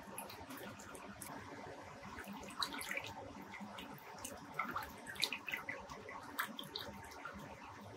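Moving water in a saltwater reef aquarium, heard through a camera submerged in the tank: a steady rushing wash with many small clicks and pops scattered through it and a faint steady hum beneath.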